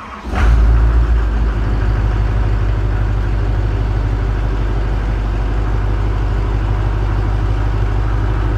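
Pickup truck engine starting, catching about half a second in, then idling steadily with a low, even drone.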